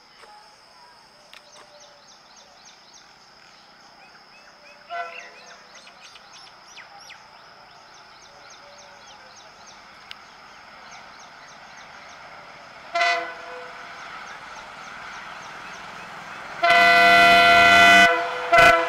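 Multi-tone air horn of an approaching Indian Railways EMD diesel locomotive. It gives short honks about five seconds in and again near thirteen seconds, then a loud long blast of about a second and a half near the end and one last short honk. Under the horn, the locomotive and train rumble grows steadily louder as they near.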